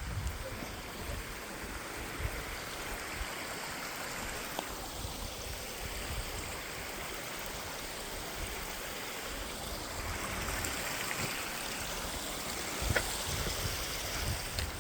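Running water from a small hillside waterfall, a steady rushing. Gusts of wind rumble on the microphone at the start and again near the end, with a single sharp click about thirteen seconds in.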